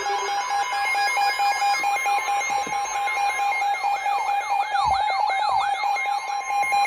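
Several electronic alarm and siren tones layered at once: fast rising-and-falling siren sweeps about three a second, stepped beeping tones and steady held tones, all loud.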